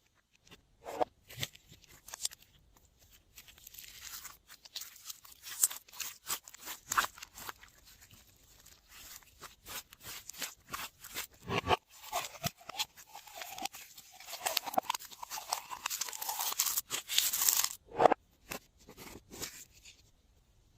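Glossy slime being squeezed and kneaded by hand: irregular sticky clicks and crackling pops, coming thicker and louder in the second half.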